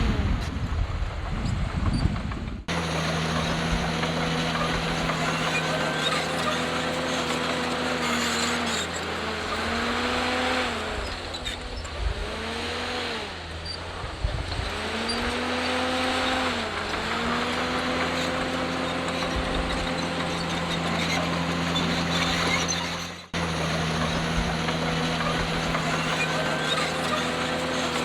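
Heavy diesel engine of earthmoving machinery running steadily, its pitch dipping and recovering several times in the middle as it takes load. Wind buffeting on the microphone is heard before it for the first few seconds.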